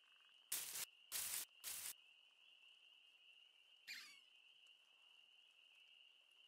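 Steady high cricket-like chirring ambience, with three short rustles in the first two seconds and a brief falling squeak about four seconds in.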